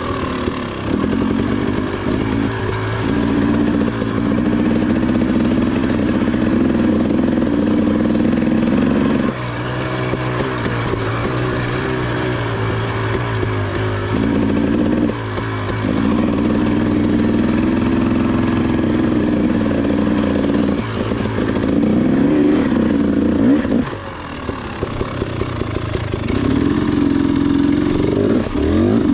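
KTM 300XC's single-cylinder two-stroke engine lugging at low revs, its pitch rising and falling with the throttle. It drops off briefly three times: about a third of the way in, around halfway, and about five seconds before the end.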